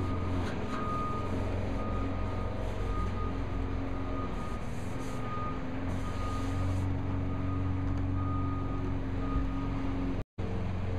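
Steady low vehicle-engine hum with a high beep that comes and goes, typical of a truck's reversing alarm, and a few brief rubbing strokes of a hand working over the barbecue's metal lid. The sound cuts out for a moment near the end.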